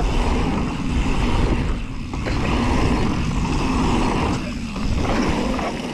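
Steady rush of wind on the microphone and tyres rolling on a packed dirt trail as a mountain bike rides fast downhill.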